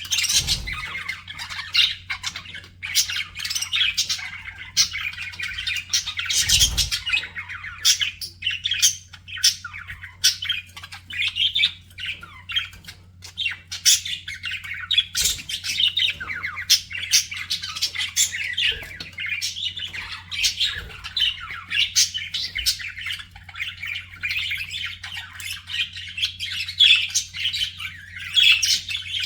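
Budgerigars chattering and warbling continuously, with many quick chirps and sharp squawks, over a steady low hum.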